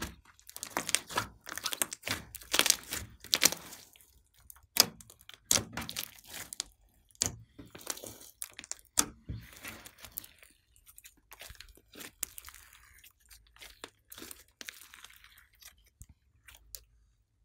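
A large mass of soft, fluffy slime kneaded, squeezed and stretched by hand, giving dense wet crackles and clicks. These are louder during the first half, then turn into softer, hissing sticky sounds as the slime is pulled out and stretched.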